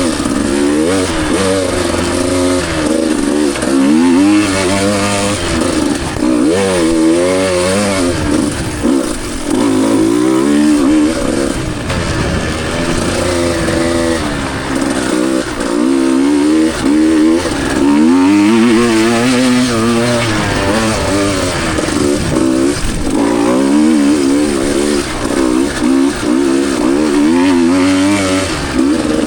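Two-stroke dirt bike engine revving up and down over and over as the throttle is worked through repeated rises and drops in engine speed.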